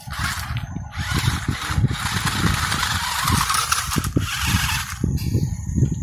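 Toy RC stunt car's small electric drive motors whirring as its wheels spin and scrabble on loose dirt, starting suddenly and dying away near the end, over an uneven low rumble.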